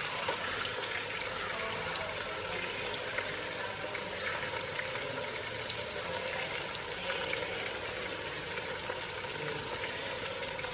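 Climbing perch frying in oil in a nonstick pan, a steady sizzle. A light clink of a metal pot lid being set down just after the start.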